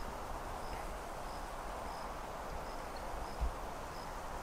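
Outdoor ambience with an insect chirping: short, high chirps repeating about two to three times a second over a steady background hiss, and one low thump about three and a half seconds in.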